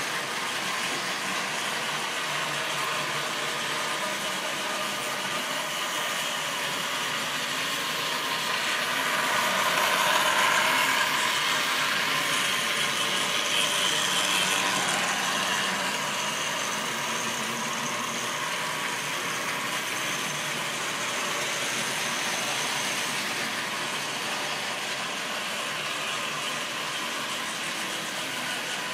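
Model railway trains running on the track: a steady rolling rumble of wheels on rail, swelling for several seconds in the middle as a steam locomotive and its wagons pass close by, then settling back.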